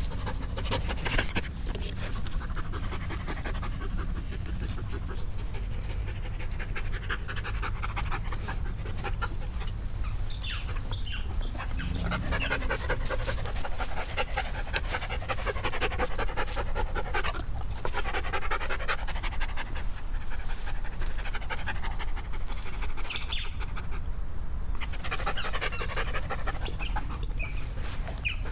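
Poodles panting as they run and play.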